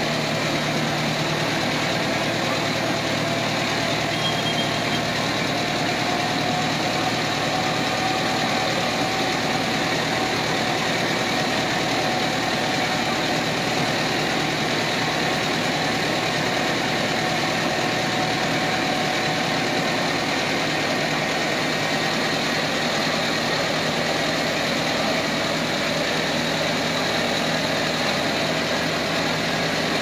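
Small engine of an open motor rickshaw running steadily as it drives through a flooded street.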